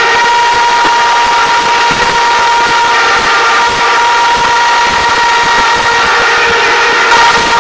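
Protest crowd blowing horns in a loud, steady blare of several held tones, over the general noise of the crowd.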